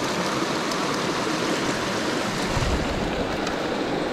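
Small mountain stream rushing and splashing over rocks, a steady water sound.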